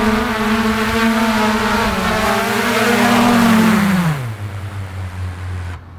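Small foldable quadcopter drone's propellers whining at a steady pitch while it hovers, then winding down in pitch and fading about four seconds in as it sets down and the motors stop.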